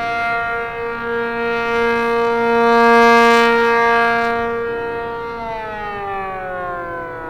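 ACA P-50 rotating outdoor warning siren sounding its steady two-tone alert chord (466/700 Hz), growing louder to a peak about three seconds in as the turning horn sweeps toward the listener, then fading. About five and a half seconds in, the pitch begins to fall steadily as the siren winds down at the end of its alert cycle.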